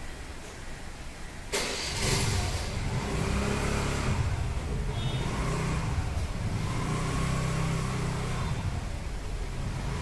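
A motor vehicle engine starts up suddenly about a second and a half in and keeps running, its note rising and falling.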